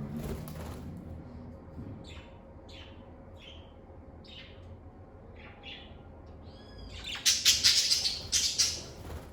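Lovebirds chirping: short high chirps about twice a second, then a loud burst of harsh squawking near the end.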